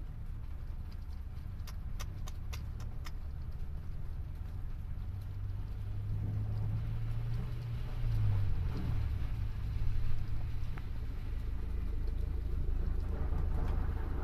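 City bus driving through a flooded street, its engine getting louder as it comes closer and passing close about eight seconds in, with tyres swishing through the standing water.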